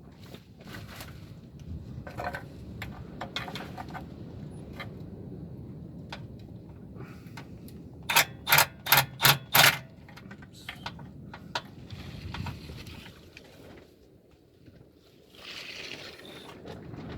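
Hand ratchet clicking as the oil pan bolts are worked loose, in short strokes. About halfway through come five loud quick back-strokes of clicking, about three a second.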